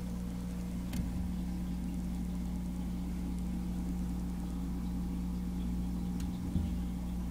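Steady low hum, as from a motor or electrical appliance, with a few faint clicks.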